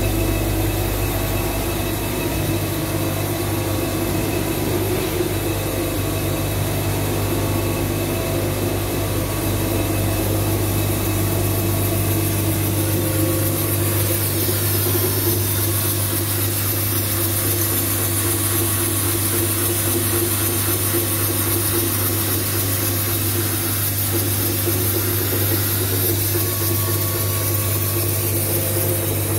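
CNC roll-notching lathe running: a steady machine hum with several held tones, and from about halfway a fine, dense rasping as the notching head works the turning steel roll.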